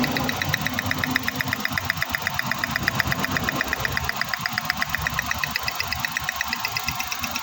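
Suzuki Q6A three-cylinder engine running at idle with a rapid, even ticking, about ten clicks a second, during a spark test of the ignition coils for a cylinder 1 misfire.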